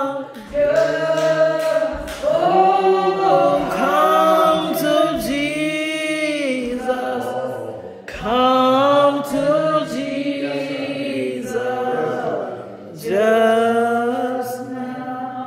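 Unaccompanied singing in slow phrases of long held, sliding notes, with short breaths between phrases about 2, 8 and 13 seconds in.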